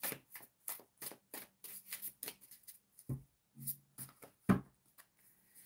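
A tarot deck being shuffled by hand: a quick run of papery card flicks that thins out after about three seconds, with a louder thump about four and a half seconds in.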